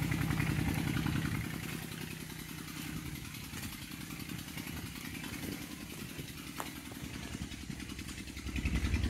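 A small engine running steadily with a fast, even pulsing beat, louder at the start, dropping about a second and a half in and rising again near the end.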